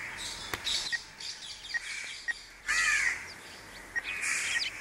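Crows cawing: several harsh caws, roughly one a second, the loudest about three seconds in.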